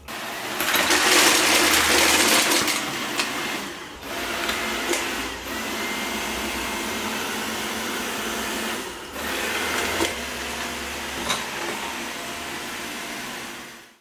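VANiGO robot vacuum running over a wooden floor, giving a steady whirr from its motor and brushes as it takes in scattered dry cat food, with a few sharp clicks. The whirr is loudest in the first few seconds.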